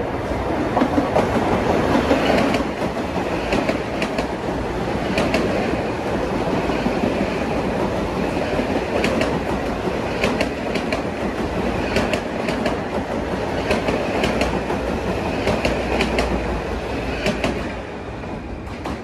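Metro-North New Haven Line electric multiple-unit commuter train passing on the near track: a steady rumble with an uneven run of wheel clicks over rail joints. It drops off shortly before the end as the last car goes by.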